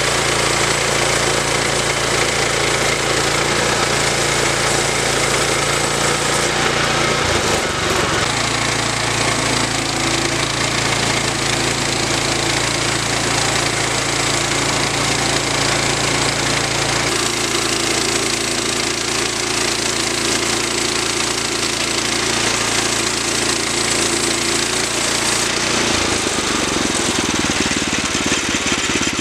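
Woodland Mills HM122 portable bandsaw mill running: its gasoline engine drives the band blade through a log. The engine note shifts a few times.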